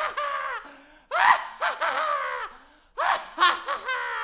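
A man's loud evil laugh in repeated bursts, each a quick run of falling 'ha's, with fresh bursts starting about a second in and about three seconds in.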